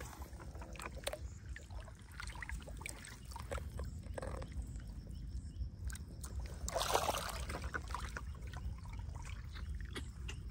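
Shallow pond water sloshing and lightly splashing, with scattered small ticks and one louder splash about seven seconds in, over a steady low rumble.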